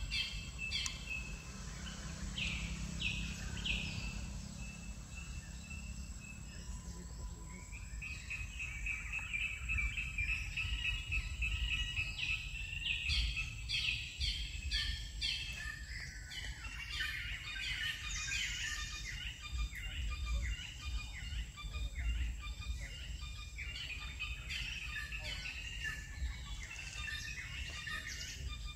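Birds chirping and calling in the trees, with runs of quick repeated notes and a high trill about eight seconds in, over a low rumble of wind or handling noise.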